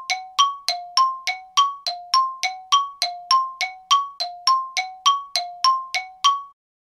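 Bell-like chime dings alternating between a lower and a higher note, about three a second, then stopping abruptly into dead silence near the end.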